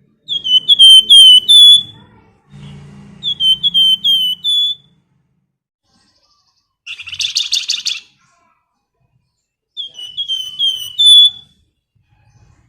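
Flamboyan bird calling: three phrases of four or five quick, downslurred whistled notes, with one short buzzy rattle about halfway through.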